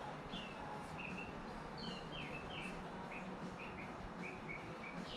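Birds chirping: a steady run of short, high chirps, about three a second, over a faint background hiss.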